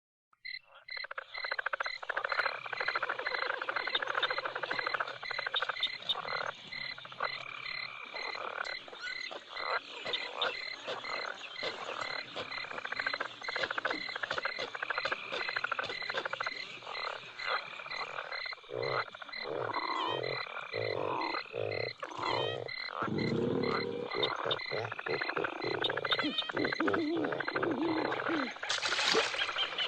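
Swamp ambience of many frogs croaking in an irregular chorus over a steady, evenly pulsing high chirp. Deeper, louder croaks join about two-thirds of the way through, and there is a short hiss near the end.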